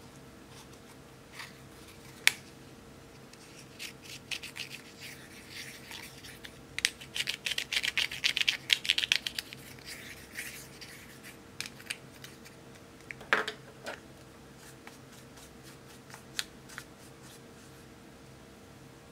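Small plastic spatula scraping pressed powder makeup out of its plastic compact: a run of quick, scratchy strokes, densest in the middle, with a few scattered clicks before and after.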